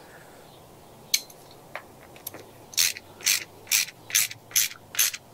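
Hand ratchet clicking as it is worked back and forth, spinning down the float bowl nut on a Briggs & Stratton flathead carburetor. A few scattered clicks come first, then from about three seconds in a steady run of clicking strokes, about two a second.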